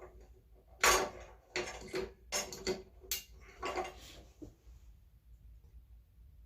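Metal clicks and clatter, about seven in a row spread over three or four seconds, from hands working on the metal parts of a vintage Japanese Class 15 clone sewing machine during oiling.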